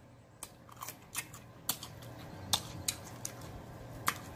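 Close-up eating sounds: irregular sharp wet clicks and smacks of mouth smacking and fingers picking at pig's feet.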